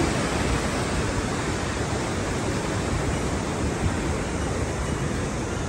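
Steady rushing wind noise buffeting the microphone, flickering unevenly in the low end.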